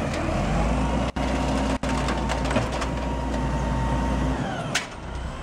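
Automated side-loader garbage truck running, a steady low engine hum under a thin steady whine as its hydraulic arm grabs and lifts a wheelie bin. Near the end the whine falls in pitch, the hum eases off, and there is a single knock.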